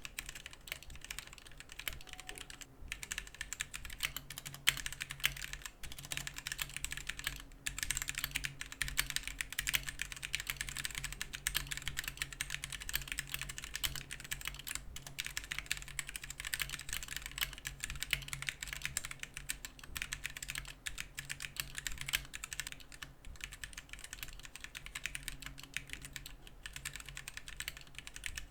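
Gamakay K61 mechanical keyboard with Gateron Yellow linear switches being typed on continuously: a dense, fast stream of key clacks with a couple of brief pauses.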